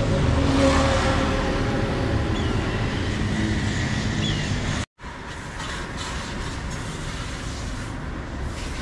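Road traffic going past, with a vehicle's engine rumble loudest in the first few seconds. The sound drops out for a moment about five seconds in, then returns as a steadier traffic hum.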